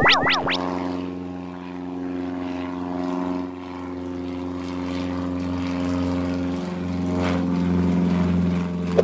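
Cartoon propeller-plane engine sound effect: a steady droning hum that swells and grows louder toward the end. It opens on the last of a run of bouncy rising-and-falling boing sounds.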